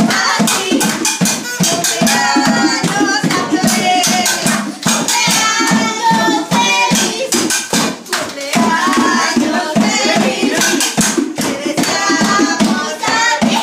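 A group of people singing a song together over rhythmic hand clapping, with the candle lit in a darkened room, as for a birthday song.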